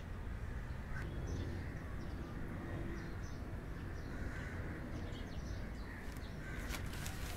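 Steady low background rumble with scattered short bird calls, and a few light clicks near the end.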